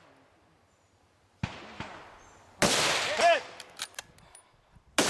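Rifle shots on a shooting range. One sudden report comes about one and a half seconds in and fades away. Then two louder, sharper shots follow, about two and a half seconds apart, each briefly ringing with a rising and falling tone.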